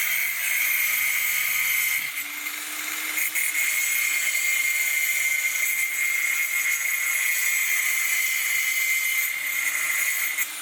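Mitsushi MT954 600-watt angle grinder's electric motor running on a test run: a steady high-pitched whine, with a brief dip about two seconds in.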